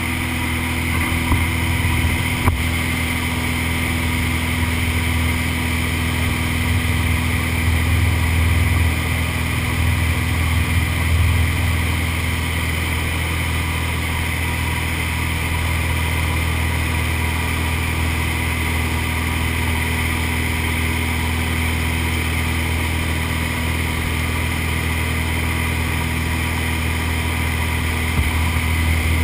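Steady drone of a light aircraft's engine and propeller, heard from inside the cabin in flight, with a few faint knocks.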